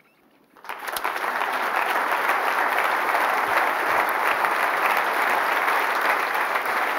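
Audience applauding: after a brief hush, the clapping breaks out about half a second in and stays steady and full.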